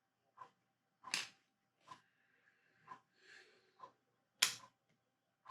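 Plastic Lego bricks clicking and clattering as they are handled and sorted, about seven separate sharp clicks, the loudest about four and a half seconds in.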